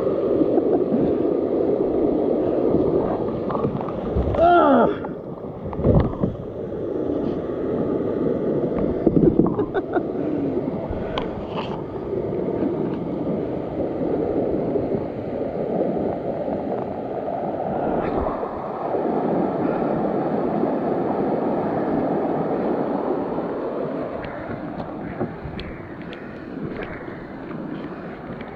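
Creek water rushing and gurgling around a plastic sit-on-top kayak as it runs a shallow rocky riffle, with a few sharp knocks about six and nine seconds in. The rush fades near the end as the kayak reaches calm water.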